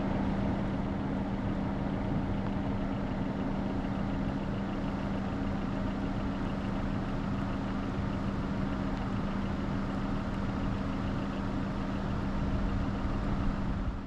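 Car engine running steadily, a constant low hum with a road-noise hiss over it.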